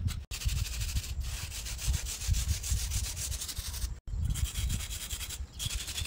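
Scratchy rubbing of a drawing stick on rough concrete as black lines are drawn, in fast, even strokes, with two very short breaks.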